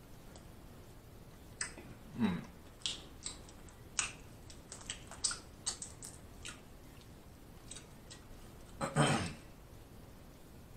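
Boiled crawfish shells being cracked and peeled by hand, a close-miked run of sharp little clicks and snaps, with two brief louder mouth sounds, about two seconds in and near the end.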